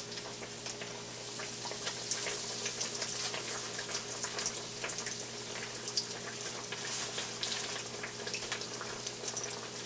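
Breaded eggplant slices frying in shallow oil in a skillet: a steady sizzle with many small crackling pops.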